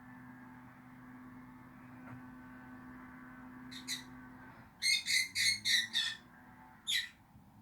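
Lovebird chirping: a single sharp chirp, then a quick run of five chirps, then one more near the end.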